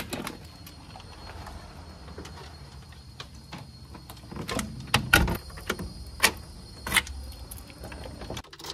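Wooden front door pulled shut and locked with a key: a string of sharp knocks and clicks from the door, its brass knob latch and lock, the loudest a little after five seconds in and again at seven seconds.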